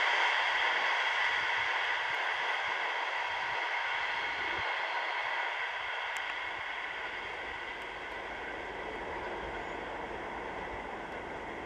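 Passenger train rolling away on the rails, its wheel and rail noise fading steadily as the last coach recedes.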